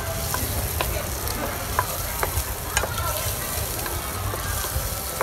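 Prawns frying in oil, sizzling steadily in a nonstick frying pan while a wooden spatula stirs them, scraping and clicking against the pan now and then.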